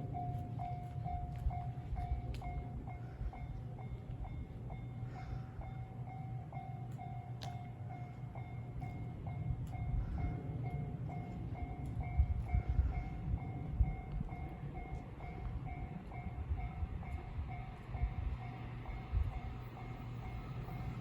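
Japanese level-crossing warning alarm ringing its electronic 'kan-kan' tone about twice a second, steadily throughout. Under it, a JR electric train rumbles through the crossing, loudest in the second half, with scattered sharp clicks from the wheels.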